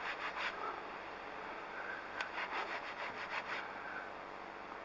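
Faint rubbing and scraping in short runs of quick strokes, near the start and again from about two seconds in, like a hand or cloth wiping over a surface.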